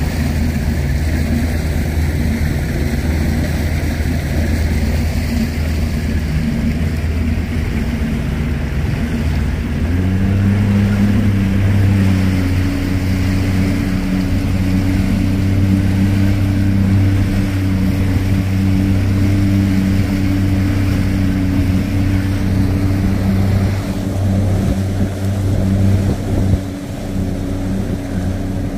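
Bass boat's outboard motor running under way, speeding up about ten seconds in and then holding a steady pitch.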